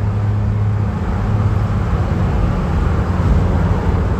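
A van driving along the road: steady engine and road noise, a constant low drone.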